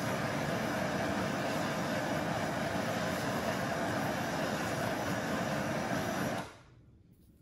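Handheld propane torch burning with a steady hiss as its flame is played over wet, sticky clay to firm it. The hiss cuts off suddenly near the end.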